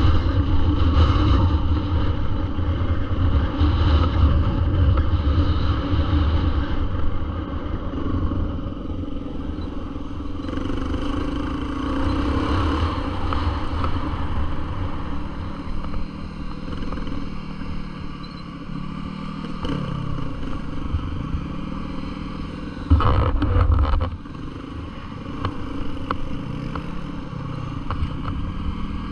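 Dirt bike engine running while being ridden on a trail. It is loud for the first several seconds, then quieter, with its pitch rising and falling as the throttle is worked. There is a brief loud low rumble about 23 seconds in.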